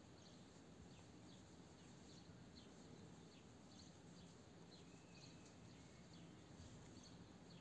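Near silence: faint room tone with a few faint, short high chirp-like sounds.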